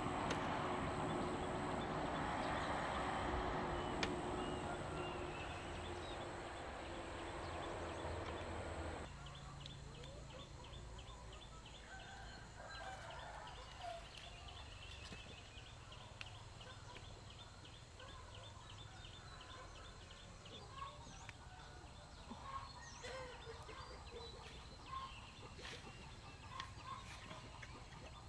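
A steady rushing noise that cuts off abruptly about nine seconds in. Quieter outdoor ambience follows, with farmyard fowl calling and rapid, repeated high chirps.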